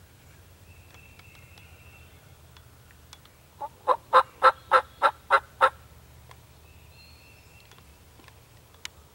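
Wild turkey calling: a run of eight loud, evenly spaced notes about a third of a second apart, lasting about two seconds, with faint songbird chirps behind.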